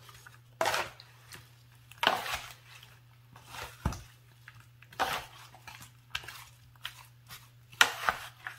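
Dressed watermelon, cucumber and red onion salad being tossed with two salad servers in a wooden bowl: wet, crunchy swishes and soft knocks of the servers against the bowl, about one every second, unevenly spaced.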